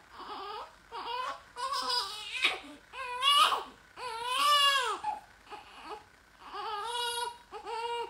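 A young baby crying off-camera in a string of short, high-pitched wails, about seven in a row, the loudest and longest about four seconds in.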